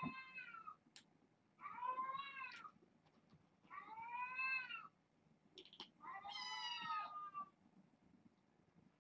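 Kitten meowing: four loud calls about two seconds apart, each rising and then falling in pitch, the last one the longest.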